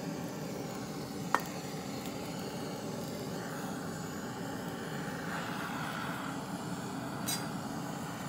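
NA-186 butane torch on a NaMilux gas canister burning with a steady whoosh as its flame singes the hair off beef skin. A single sharp click about a second and a half in.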